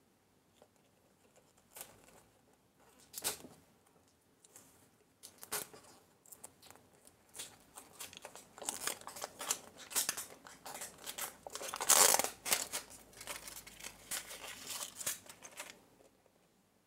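Plastic packaging crinkling and tearing as a toy surprise egg is opened and unwrapped by hand. It starts with a few separate clicks and rustles, then turns into denser crinkling that is loudest about three-quarters of the way through.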